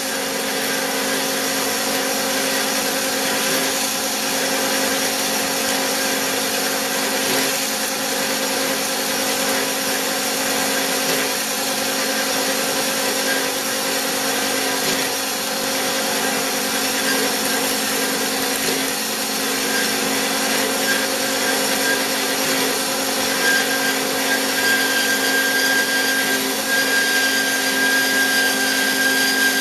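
Bigstone CF450 horizontal bandsaw running, its blade sawing steadily, with a steady machine hum. A thin high whine comes in about two-thirds of the way through and holds.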